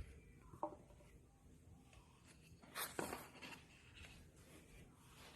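Faint handling noises in a small room: a short tap, then about three seconds in a brief scraping rustle, the loudest sound.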